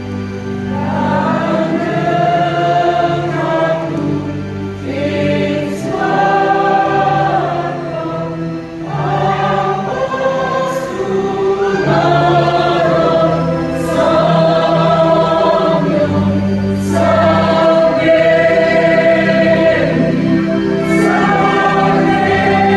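A choir singing a slow hymn in held, sustained chords, phrase after phrase.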